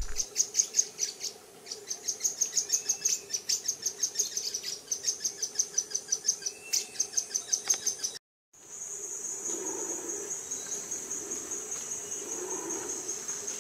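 Rainforest insects: high-pitched rhythmic chirping, several pulses a second, with a few faint bird whistles. After a brief break about eight seconds in, a steady, unbroken high insect trill.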